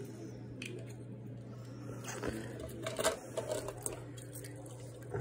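Glass canning jars being handled, with a few light clinks and knocks around the middle, over a steady low hum.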